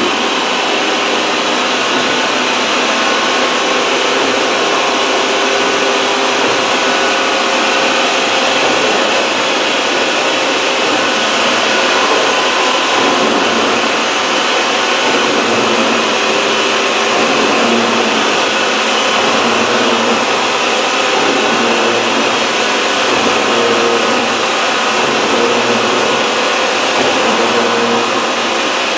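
Large gantry milling machine face-milling a metal plate with coolant: a steady, loud cutting noise from the spinning cutter, with a faint steady whine.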